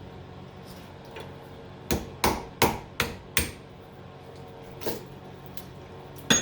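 Hammer striking a homemade punch to drive the copper windings out of a cut-open transformer core: a quick run of five sharp metal blows about two seconds in, with single lighter blows before and after and another hard blow at the end.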